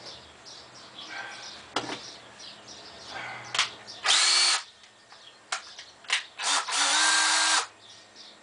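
Screw gun (power drill/driver) driving screws through pocket holes into wood framing: a short burst about four seconds in and a longer run of about a second near six and a half seconds, each spinning up to a steady whine. Sharp knocks of handling the screws and wood come between the runs.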